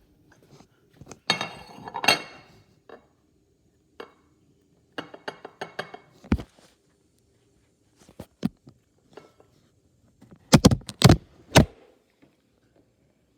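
Hard objects clinking and knocking, dish-like: a short clatter about a second in, scattered light taps in the middle, and a quick run of loud knocks near the end.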